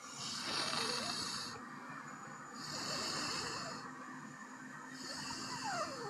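A person breathing close to the microphone: three hissing breaths, each about a second long, spaced a couple of seconds apart, over a faint steady hum.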